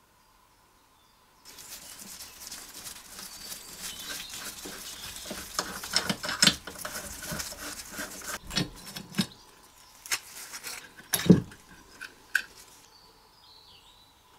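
Hand tools and metal parts working on the cylinder head of an old Briggs & Stratton model 11 engine as the head is unbolted and taken off. A dense run of metallic clicking and scraping is followed by several separate knocks, the loudest about eleven seconds in.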